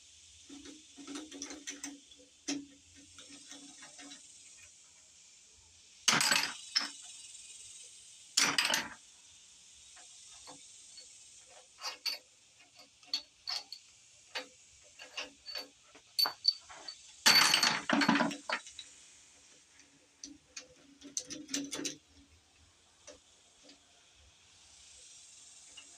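Socket ratchet clicking in bursts and tools clinking on metal as bolts are worked loose on a Dodge 360 V8, with three longer ratcheting runs. A steady high insect buzz runs underneath.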